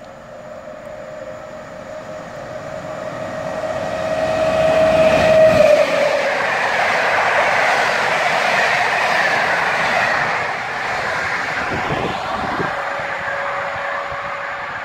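EP07 electric locomotive hauling a train of passenger coaches passing through without stopping. The sound builds up, and a steady whine drops in pitch as the locomotive goes by about five seconds in. Then the coaches' wheels rumble and clatter on the rails, fading slowly.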